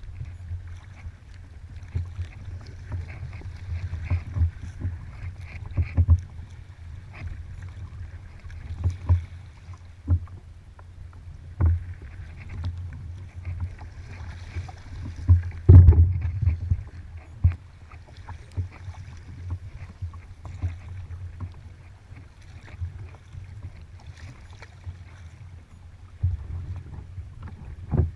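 A kayak being paddled on open water: paddle splashes and irregular knocks against the hull, the loudest about halfway through, over a steady low rumble.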